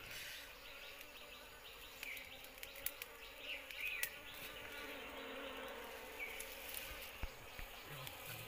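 Honeybees buzzing steadily in and around a wild nest in a hollow tree trunk, the colony stirred up as comb is pulled out by hand. A few small clicks come through the hum.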